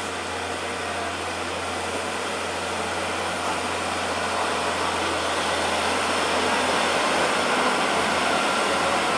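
Hino 500 truck's diesel engine running as it approaches and rounds the bend, a steady low drone with road noise that grows gradually louder.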